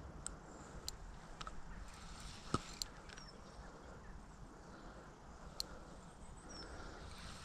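Fixed-spool fishing reel and rod being handled as line is wound in: scattered sharp clicks, the loudest a knock about two and a half seconds in, over a low steady background.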